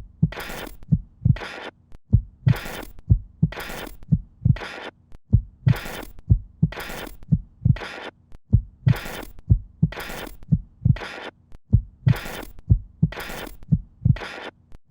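A pulsing, heartbeat-like soundtrack: deep thumps, each paired with a short burst of bright hiss, about two a second in a slightly uneven rhythm over a faint steady hum.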